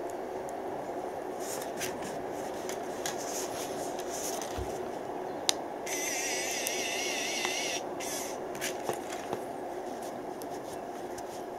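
Handheld 3D pen running with a steady hum. For about two seconds near the middle its filament-feed motor gives a wavering, warbling whine as it extrudes PLA. Light clicks and scrapes come from the plastic part being handled against the pen tip.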